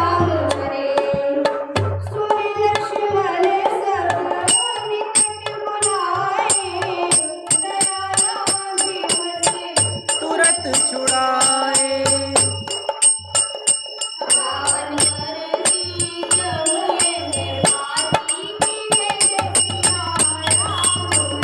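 Devotional jagran music: tabla strokes under a wandering melody line, with a steady high ticking percussion beat joining about four seconds in.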